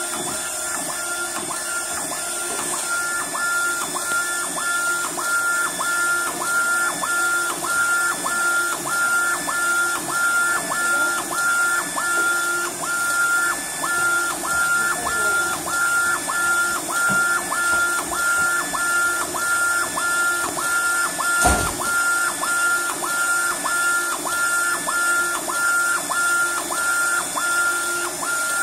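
UV LED flatbed printer printing, its print carriage shuttling back and forth across the bed: a steady whine that breaks and restarts in an even rhythm, about three times every two seconds, over a constant machine hum. A single sharp knock comes about two-thirds of the way through.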